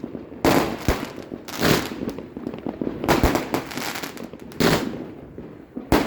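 Fireworks going off: a string of sharp bangs at uneven intervals, roughly one a second, each trailing off in an echo.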